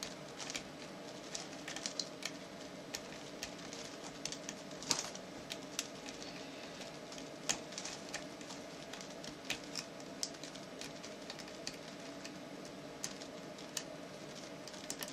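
Irregular small metallic clicks and ticks of a lock pick working the seven pin stacks of a BEST padlock under tension. A steady low hum runs underneath.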